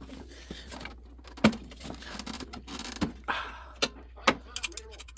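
Irregular metallic clicks and knocks of a 10 mm socket wrench and other hand tools working a tight bolt on a snowblower's plastic engine shroud, with handling rustle between the strikes.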